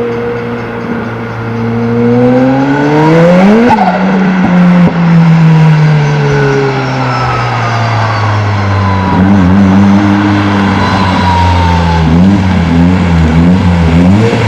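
Ford Escort RS Cosworth's turbocharged four-cylinder engine revving, its pitch climbing to a peak a little under four seconds in, then dropping back and running at lower revs, with the revs wavering up and down near the end.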